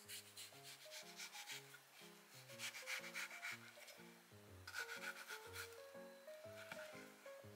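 Kitchen knife sawing through an orange-fleshed melon wedge along its rind on a bamboo cutting board: a soft rasping scrape in about four strokes, near the start, about three seconds in, about five seconds in and briefly near the end. Quiet background music plays underneath.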